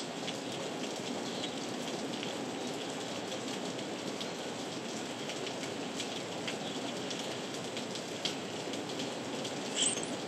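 Heavy rain falling steadily: a dense, even hiss of rain on the ground, with individual drops ticking through it. A brief louder sound stands out near the end.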